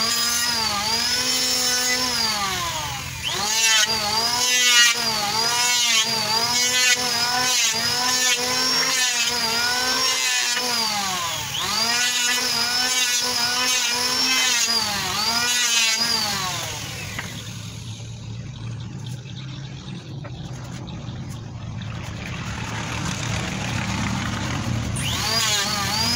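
Electric hand planer running as it is pushed through a wooden plank, its motor whine sagging in pitch and recovering about once a second as the blades bite. The whine stops about two-thirds of the way through and starts again near the end.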